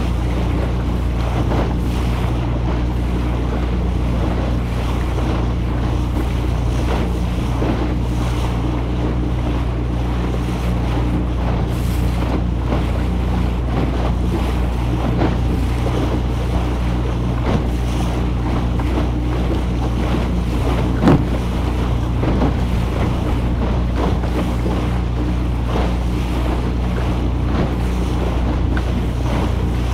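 Wooden motorboat under way at a steady speed: the engine's constant low hum under the rush of water along the hull, with irregular slaps of chop against the bow and wind buffeting the microphone. One sharper knock comes about two-thirds of the way through.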